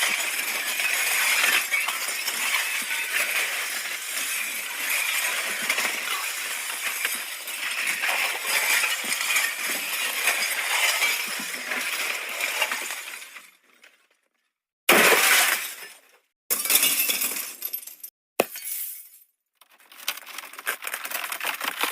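Glass sound effects: a long run of broken glass clinking and crashing for about thirteen seconds. After a second of silence come four short glass smashes, each starting sharply and fading out within a second or two.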